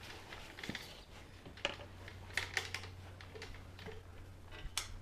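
Scattered light clicks and knocks of hands handling tools and parts at the engine, a handful of sharp taps over a faint steady low hum.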